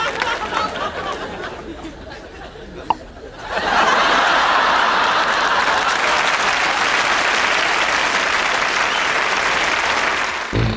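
Audience applause: after a short lull, an audience starts clapping about three and a half seconds in and keeps up steady, loud applause until just before the end.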